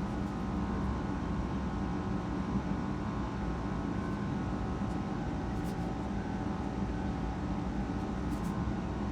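Steady mechanical hum of a running fan or air-handling unit, even in level, with a few fixed-pitch tones in it.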